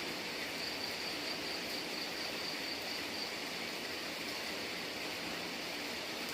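Steady rain falling, an even hiss without separate drops, with a faint high steady tone for about the first half.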